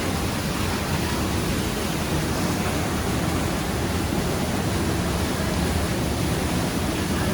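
Steady rushing of a waterfall pouring into a pool.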